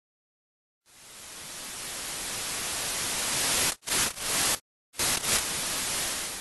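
Static-like white noise that fades in about a second in and swells steadily, then cuts out abruptly with a couple of short choppy bursts and a brief silence before it returns near the end.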